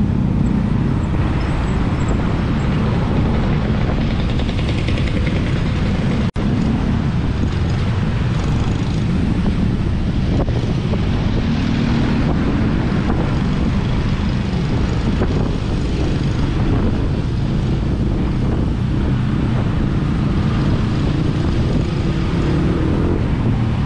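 Steady loud rumble of wind and road noise while riding through traffic, heard on an action camera's microphone. The sound cuts out for an instant about six seconds in.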